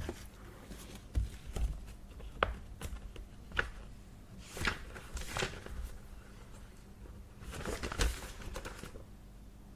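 Paper being handled in an office: soft rustling swishes of sheets being moved and shuffled, with a few sharp, separate clicks between them.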